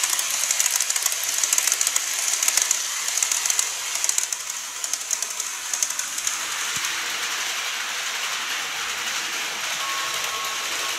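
N-gauge model train (KATO E531 series) running on sectional track, its wheels clicking rapidly over the rail joints with a high hiss from the running gear. The clicking thins out about six seconds in as the train moves away, leaving a steadier hiss.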